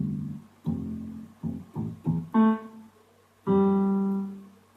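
Casio CTK-6300IN electronic keyboard played in split mode with a grand piano tone. There are several single low notes, then two higher notes in a brighter tone, the last held for about a second while it fades.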